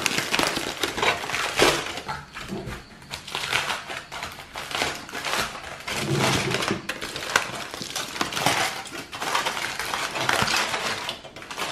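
Aluminium foil crinkling and crackling in uneven handfuls as it is peeled back and unwrapped from around a clay pot.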